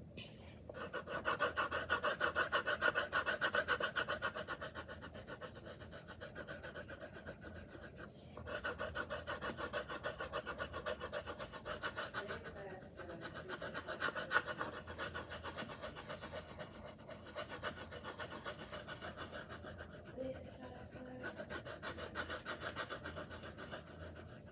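Colouring in with a drawing tool on paper: fast back-and-forth scribbling strokes that scratch steadily, stopping briefly a couple of times.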